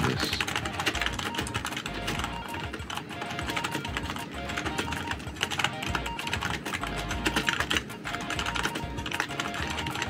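Rapid, continuous typing on a regular membrane computer keyboard: a dense stream of soft keystroke clicks, over quiet background music.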